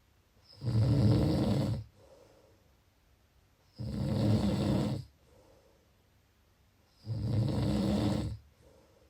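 A sleeper snoring: three long snores, evenly spaced about three seconds apart, each followed by a much quieter breath.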